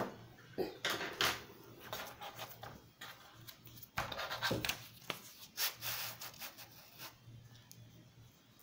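Handling noise: a paper workbook being slid and rubbed under the hand holding the phone, a scatter of soft scrapes and rustles that die down near the end.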